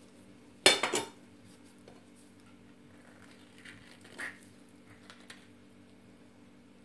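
A metal kitchen knife is set down with a sharp clatter on a ceramic plate less than a second in, ringing briefly. A few faint soft scrapes follow as avocado halves are handled.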